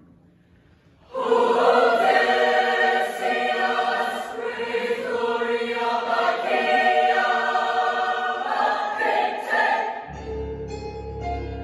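Show choir singing in full multi-part harmony, entering together and loud about a second in after a brief hush. Near the end the full singing drops away into a quieter passage with a low bass line.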